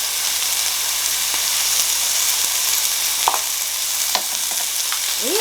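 Meat sizzling steadily on a portable grill, a constant frying hiss, with a few light clicks about three and four seconds in.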